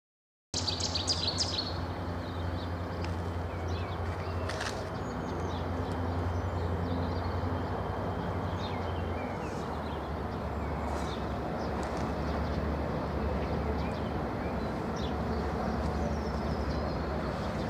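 Low, steady engine rumble of a distant Renfe class 333 diesel locomotive (333.342) approaching, its pitch shifting slightly a few times, with birds chirping, most densely about half a second to two seconds in.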